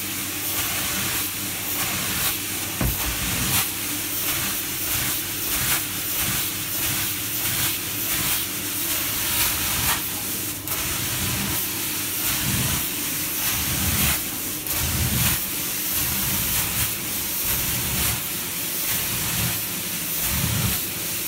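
Carpet-cleaning extraction machine working through its floor wand, spraying water into the carpet and sucking it back up: a loud, steady hiss of suction, with irregular low rumbles as the wand is pushed and pulled.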